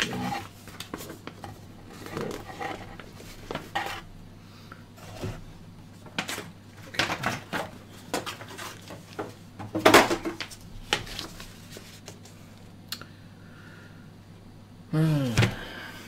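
Cardboard packaging and paper leaflets being handled and unfolded: irregular rustles, soft knocks and clicks, one louder rustle about two-thirds of the way through. A short vocal sound near the end.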